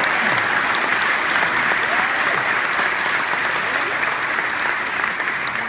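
Audience applauding, with some voices calling out among the clapping.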